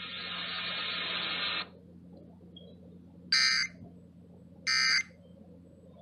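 Emergency Alert System end-of-message data bursts from a radio: short, harsh, identical screeches, two about a second and a half apart, with a third starting at the very end. Before them, radio hiss cuts off abruptly about a second and a half in.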